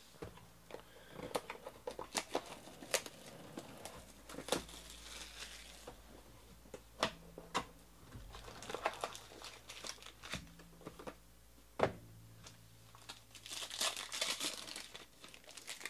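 Hands opening a trading-card box and tearing open a card pack: crinkling and tearing of the wrapper in three spells, with sharp clicks and taps of cardboard and cards in between.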